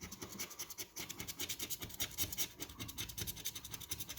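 Scratch-off lottery ticket being scratched: quick, repeated strokes scraping the coating off the card.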